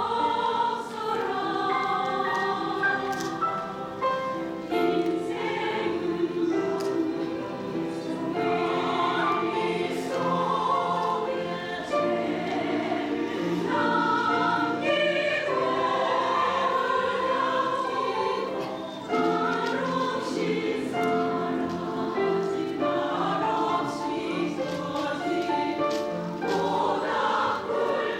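Women's choir singing in Korean with accompaniment, steadily and without a break.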